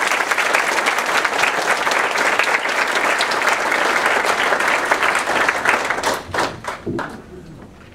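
Audience applauding, dense and steady, thinning to a few scattered claps about six seconds in and dying away by seven.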